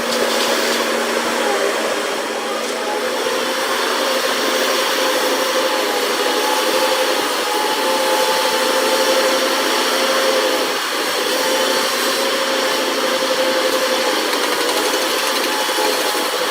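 A machine running steadily: dense mechanical noise with a held whine, unchanging throughout.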